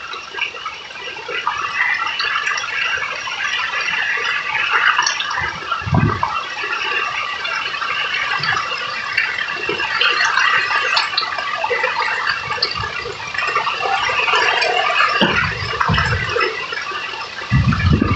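Heavy rain falling steadily on trees, leaves and wet ground, a dense even hiss. Gusts of wind rumble on the microphone about six seconds in, again around fifteen seconds, and near the end.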